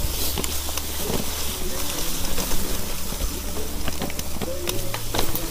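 Off-road electric scooter being ridden along a dirt trail: a steady motor hum whose pitch steps up about five seconds in, with tyre rumble and scattered clicks and knocks from the rough ground.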